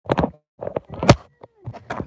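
A string of knocks and thumps with handling noise, the loudest sharp knock about a second in.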